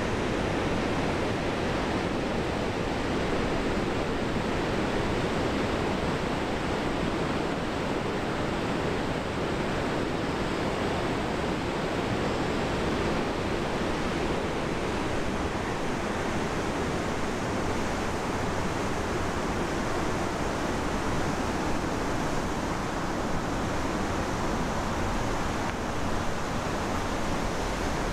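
Steady, unbroken rush of falling water from the river weir beside the lock.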